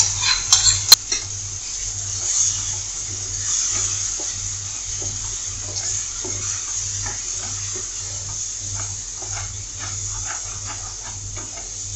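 Wooden spatula stirring and scraping a thick mango and besan mixture in a kadai, in many short strokes over a faint steady sizzle. Near the start, two sharp clinks of utensils about half a second apart as the besan paste goes in.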